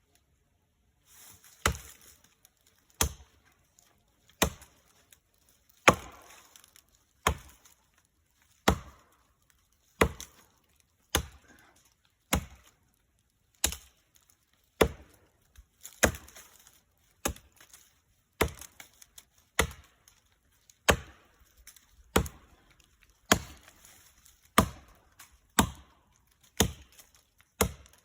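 Axe chopping into a standing tree trunk: about twenty sharp single strikes at a steady pace of roughly one a second, with short quiet gaps between them.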